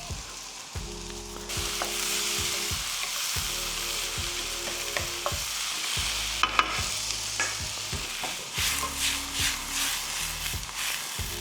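Vegetables sizzling in hot oil in a pan on high heat as they are stir-fried, with clicks and knocks of the utensil against the pan, more of them in the second half.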